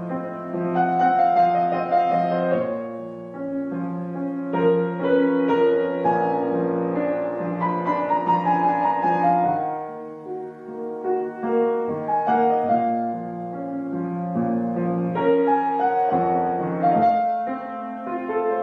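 Piano music with held chords, the notes changing every second or two.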